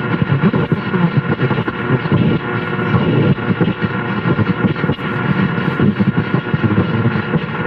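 Car AM radio tuned to 1440 AM, turned up loud, playing crackling static between stations with faint steady whistle tones through it.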